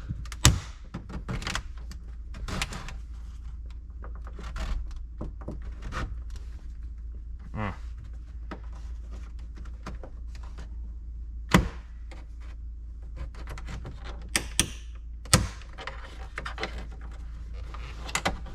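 Plastic dashboard trim being pried and handled: irregular clicks, knocks and clunks, the sharpest about two-thirds of the way through, over a steady low hum.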